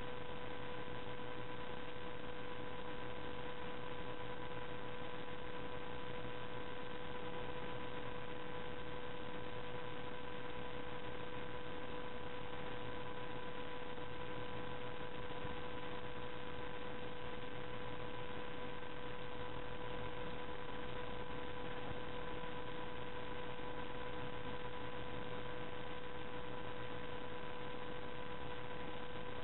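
Steady recording hiss with a constant electrical whine held on one pitch, unchanging throughout; no other sound stands out.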